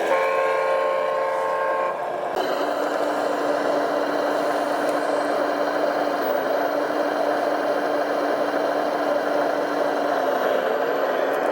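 A horn sounds steadily for about two seconds, then cuts off and gives way to a steady engine drone that runs on unchanged.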